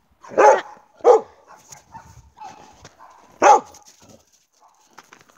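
Dog barking three times while playing: short sharp barks about half a second in, about a second in, and again about three and a half seconds in.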